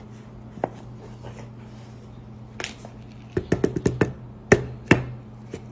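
A Pringles can handled and knocked against a ceramic plate to release an omelet cooked inside it: a few light clicks, then a quick run of taps and two louder knocks about half a second apart near the end, over a steady low hum.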